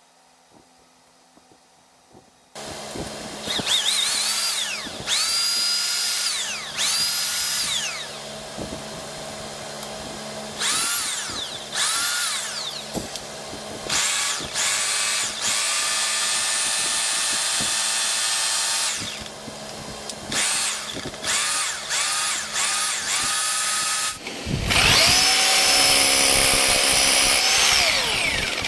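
Bosch GBH 2-28DV rotary hammer drill running after its service: the trigger is pulled in short bursts, each time the motor whining up to speed and winding down, with a steadier run midway. Near the end it runs long and loud with a rougher, heavier sound low down.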